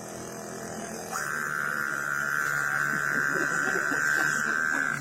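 A man imitating a running generator with his voice: a steady low hum, joined about a second in by a loud, high buzzing whine that stops suddenly at the end.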